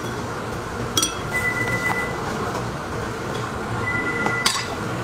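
A metal spoon clinks sharply against a container twice, about a second in and near the end, over a steady background hum. Two brief high tones sound between the clinks.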